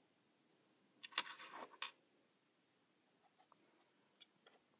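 Near silence, broken by a few faint clicks and scratches of handling between one and two seconds in, and two tiny ticks near the end.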